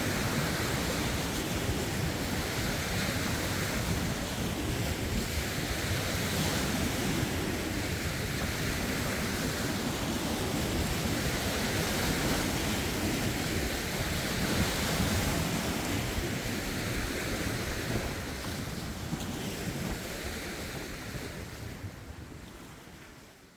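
Lake waves washing over rocks in slow, repeated swells, with wind buffeting the phone's microphone. The sound fades out near the end.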